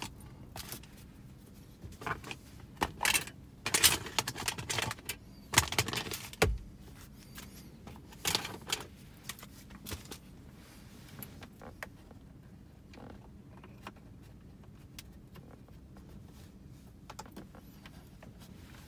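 Clicks and small metallic rattles of screws and a screwdriver being handled while dashboard trim is screwed back in. They come thickest in the first half, then thin to occasional faint ticks.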